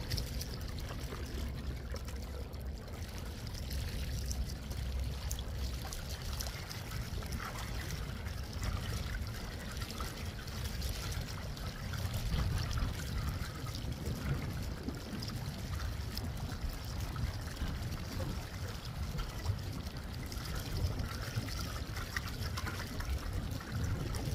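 Water trickling and splashing along the hull of a small inflatable electric-powered boat under way, over a steady low rumble.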